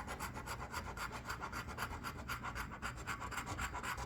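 A scratch-off lottery ticket being scratched: quick, even back-and-forth scraping strokes, several a second, rubbing the coating off the card.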